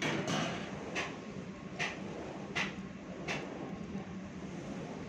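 Knife cutting slits into raw chicken, with a sharp knock about every three-quarters of a second as the blade goes in.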